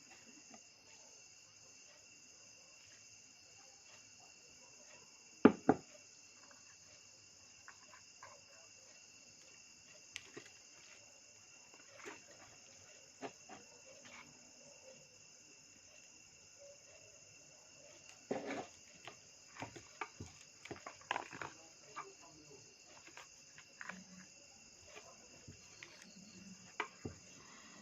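Crickets chirping steadily in the background, with scattered clicks and knocks of eating: utensils and dish handling, including one sharp knock about five seconds in and a cluster of them later.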